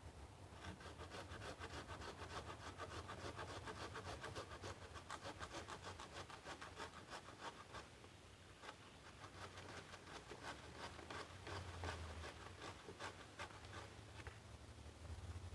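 Hand saw cutting through wood in quick, even back-and-forth strokes, in two bouts with a short pause about eight seconds in.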